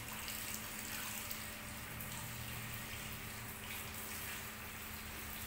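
Handheld shower sprayer running steadily, water spraying onto hair and splashing into a shampoo basin as the hair is rinsed.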